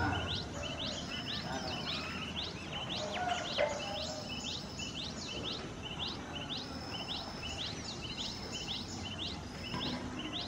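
A small songbird repeating a short, high, rising note at an even pace of about two to three times a second. Other birds give a few lower falling calls in the first few seconds.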